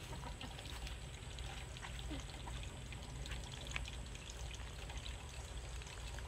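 Faint steady rustling noise over a low rumble, with scattered small ticks and clicks.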